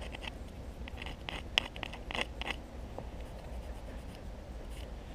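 Gloved fingers scraping and rubbing soil off a dug-up metal petrol cap lid: a run of short scratches, mostly in the first couple of seconds, with a sharp click about one and a half seconds in.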